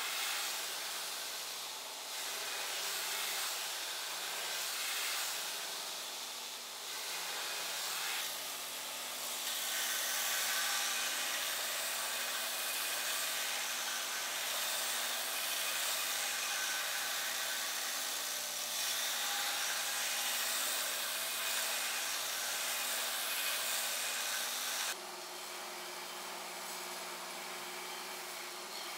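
Belt grinder grinding a steel machete blade: the abrasive belt hisses steadily against the steel over the low hum of the motor. About four seconds before the end the sound drops abruptly and carries on more quietly, with a different hum.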